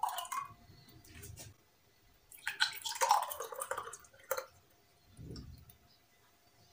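Thick milky custard almond sharbat being ladled and then poured from a jug into glass tumblers: liquid splashing and gurgling in two short spells, with a sharp tap about four seconds in and a soft thump a second later.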